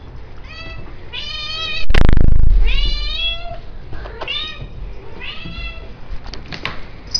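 Domestic cat meowing again and again, about five calls of varying length, greeting its owner on arriving home. About two seconds in there is a single loud thump with a low rumble.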